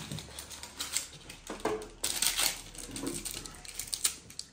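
Cardboard packaging being handled and pulled apart by hand: a small box and its inner tray sliding, scraping and clicking, with a louder rustle about two seconds in.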